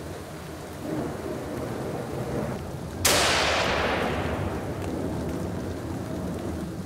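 A single hunting-rifle shot about three seconds in, its echo rolling through the forest and dying away over about two seconds.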